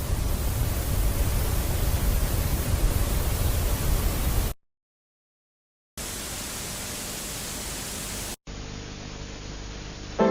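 Loud, even static hiss that cuts off about four and a half seconds in, followed by about a second and a half of dead silence. Quieter static then comes back, drops out for an instant, and carries on duller with a faint steady hum.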